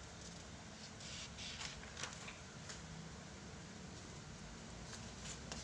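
Faint paper rustling with a few soft clicks as the pages of a thick, worn photocopied booklet are handled and turned.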